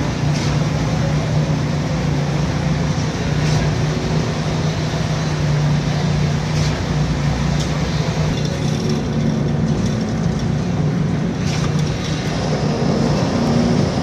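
Putzmeister truck-mounted concrete boom pump running while it pumps concrete: a loud, steady drone with a strong low hum, and a few sharp knocks scattered through it.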